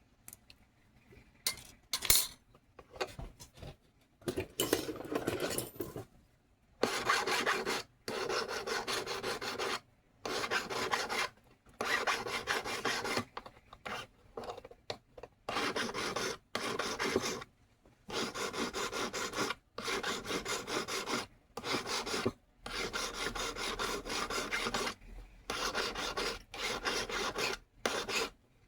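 Hand file rasping on metal in a long run of back-and-forth strokes, each lasting about a second or two with short pauses between, after a few seconds of light clicks and handling.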